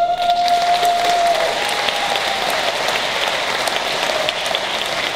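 Audience applauding, with a single long held high note in the first second and a half.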